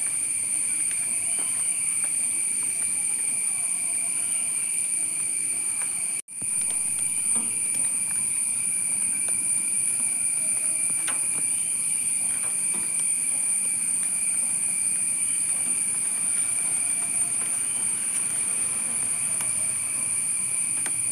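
Steady high-pitched insect drone, like crickets or cicadas chirring in garden vegetation, with a brief cut-out about six seconds in.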